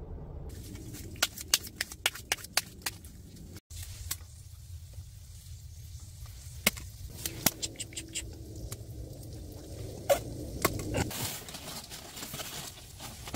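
Hwatu flower cards slapped down onto a padded felt mat, a run of sharp clicks in the first few seconds and scattered single slaps after, then a rustling stretch near the end as the cards are gathered and shuffled.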